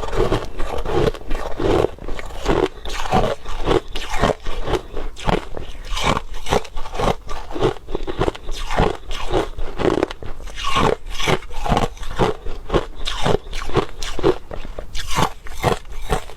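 Crushed ice being chewed close to the microphone: a dense, irregular run of sharp crunches, several a second, as the teeth break up the ice.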